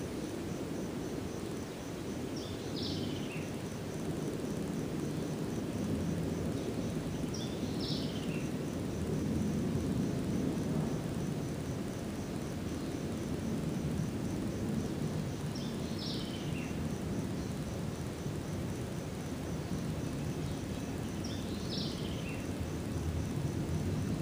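Garden ambience: a low rushing background noise that swells and eases, under a faint steady high insect trill. A bird gives a short falling call four times, several seconds apart.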